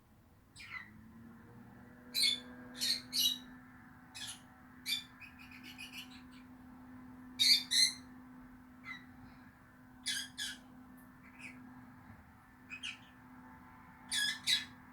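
Rosy-faced lovebirds calling: short, sharp, shrill chirps at irregular intervals, several coming in quick pairs. A faint steady hum runs underneath.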